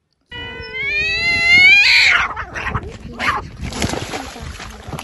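A cat's drawn-out yowl rising in pitch, which breaks into a loud hiss about two seconds in, followed by several shorter hisses as two cats tussle.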